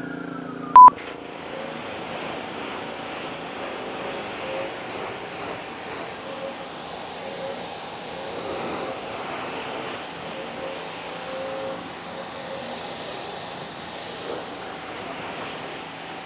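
Pressure washer spraying a light rinse over a car's engine bay: a steady hiss of water spray, with a faint steady tone underneath. A short, loud beep sounds just under a second in, as a siren fades out.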